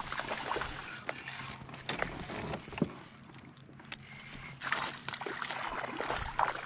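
Spinning reel being cranked in spells to wind in a hooked fish, its gears and mechanism whirring with scattered clicks, easing off for a moment about three seconds in.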